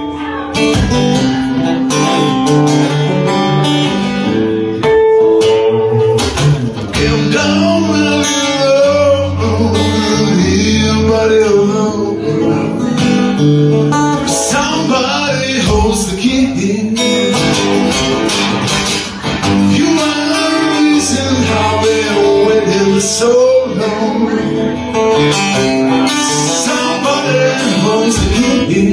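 Acoustic guitar played live, strummed and picked, with a man singing over it from about seven seconds in.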